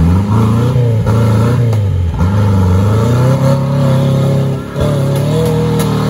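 Off-road 4x4's engine revving hard, its pitch rising and falling several times, then held high and steady from about halfway, with a short drop near the end.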